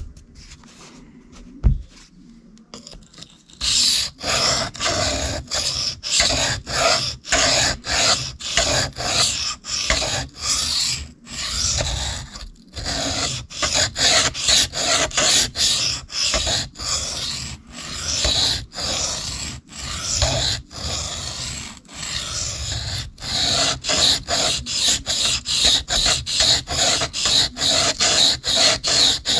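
Steel knife blade stroked back and forth across a diamond sharpening plate: rapid, regular scraping strokes at about two a second, starting about four seconds in, with a few short pauses. The edge is being ground to an apex while it is reprofiled.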